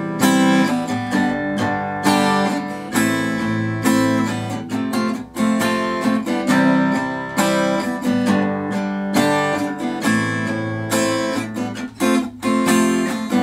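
Cutaway acoustic guitar strummed in a steady rhythm, chords changing, in an instrumental passage of a song with no voice.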